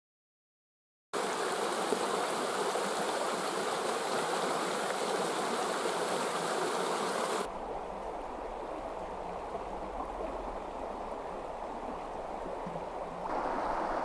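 A shallow, stony stream rushing steadily, starting about a second in. Partway through, the rush drops to a softer noise with a low hum underneath for several seconds, then comes back at full level near the end.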